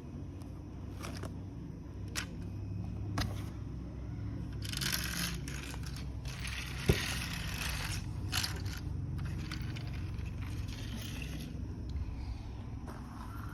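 Electric turbo fan running with a steady low hum, while small toy vehicles scrape and clatter on a hard surface. There are scattered clicks, two spells of scraping in the middle, and one sharp click about seven seconds in.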